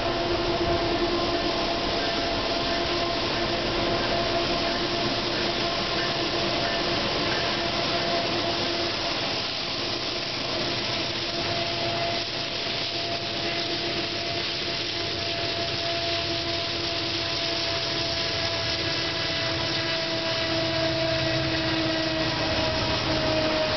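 Norfolk Southern diesel locomotives bringing a double-stack container train out of a tunnel: a steady engine drone with a constant whine, followed by the stack cars rolling past on the rails.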